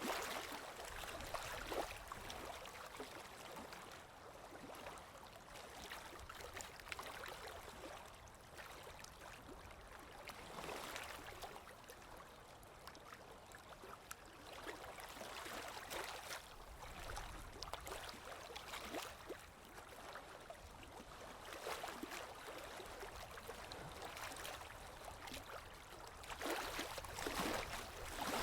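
Small ocean waves lapping against the shore, a steady wash with irregular splashes every few seconds, swelling louder near the end.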